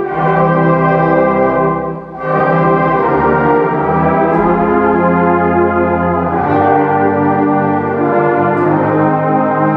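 School concert band of woodwinds and brass playing sustained, held chords, with a short break between phrases about two seconds in.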